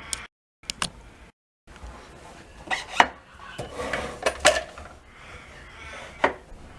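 Irregular sharp clacks and knocks of timber and metal parts being handled and set on a sliding compound mitre saw, with no motor running; the sound drops out completely twice, briefly, in the first two seconds.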